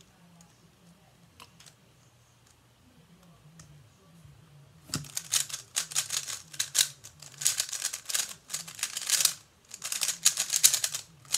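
3x3 speedcube being turned at full speed in a timed speedsolve: a dense, fast rattle of plastic clicks starting about five seconds in, with one short break near the end. Before that, a few seconds of near quiet with a few scattered faint clicks.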